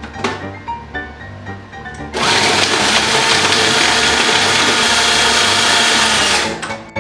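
Electric food processor running with beets in its bowl, a loud, steady whir that starts about two seconds in and stops shortly before the end. Background music with a steady beat plays underneath.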